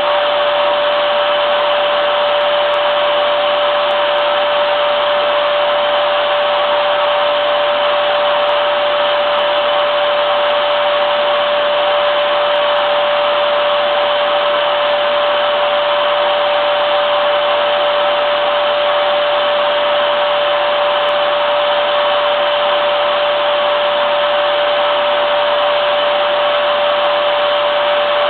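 Vacuum cleaner running continuously at a steady speed: an unchanging rushing hiss of air with a steady motor whine held on one pitch.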